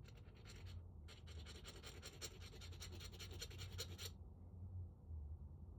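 A file scraping metal in quick, rapid strokes, deburring a lock part. There is a short run of strokes, a brief pause, and then a longer run that stops about four seconds in.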